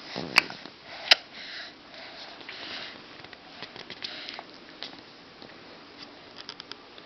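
Soft breathy sniffing and snuffling noises, with a couple of sharp clicks about half a second and a second in, and small ticks near the end.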